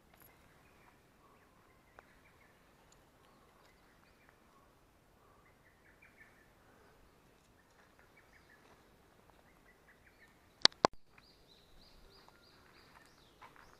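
Faint birds chirping in the background, with two sharp clicks in quick succession about eleven seconds in, followed by a high, rapidly repeated note for a couple of seconds.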